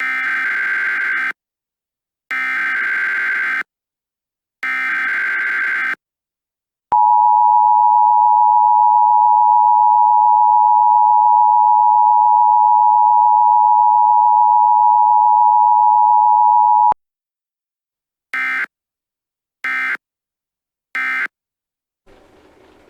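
Emergency Alert System signal. Three SAME header data bursts of just over a second each come first, then the two-tone attention signal (853 and 960 Hz) held steadily for about ten seconds. Three short data bursts follow, the end-of-message code.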